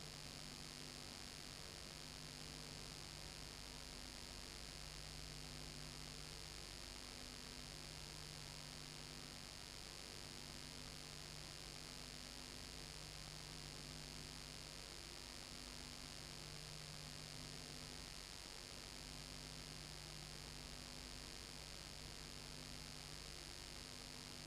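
Steady electrical hum and hiss, with low tones pulsing on and off in a slow, even pattern every couple of seconds: background noise of a home-movie transfer, with no sound from the filmed scene.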